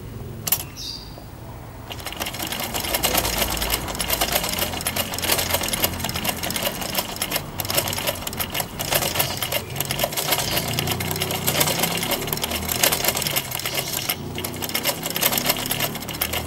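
Black straight-stitch sewing machine stitching a test seam at a fast, steady clatter. It starts about two seconds in after a single click and pauses briefly a few times. Its needle has just been refitted with the scarf on the right to cure skipped stitches, and the seam now sews without skipping.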